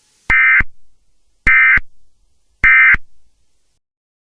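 EAS/SAME digital end-of-message code ("NNNN"): three short, identical bursts of warbling two-frequency data tone, about a second apart, with a short echo after each. They mark the end of the emergency alert.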